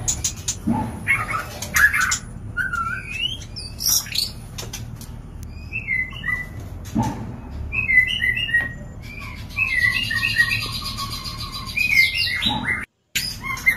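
White-rumped shama (murai batu) mating calls: a string of short chirps and whistled notes, with a rapid run of repeated notes about ten seconds in and a few sharp clicks between calls. The audio drops out briefly near the end.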